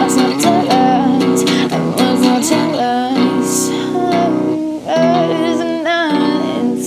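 Acoustic guitar strumming chords under a singing voice, part of an indie rock song.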